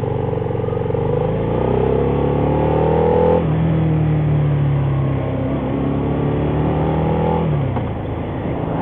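Harley-Davidson Night Rod Special's V-twin engine accelerating hard: the pitch rises steadily, drops sharply at a gear change about three and a half seconds in, then climbs again and drops once more near the end.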